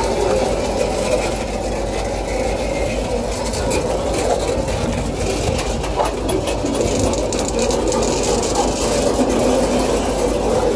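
Loaded container wagons of a freight train rolling slowly past close by: a steady rumble of steel wheels on the rails, with a few sharp clicks from the wheels and couplings.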